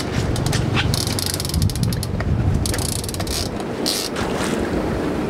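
Fishing reel clicking rapidly as line is wound in against a hooked salmon.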